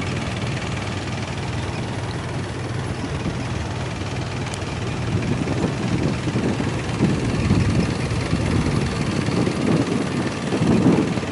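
A tour boat's engine running steadily while the boat is under way.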